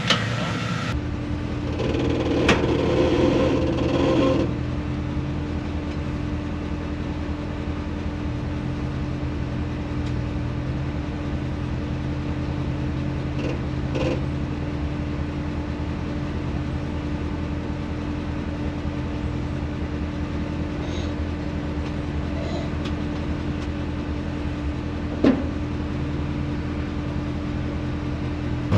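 Off-road truck engine running steadily at low revs, with a few sharp knocks over the drone.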